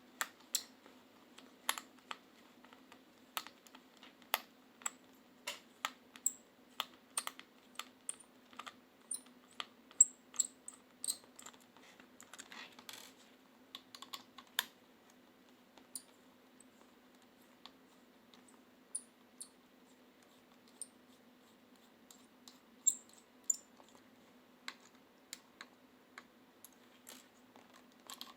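Irregular light clicks and taps of small hard parts being handled and set down, with a brief scratchy scraping about halfway through and a faint steady hum underneath.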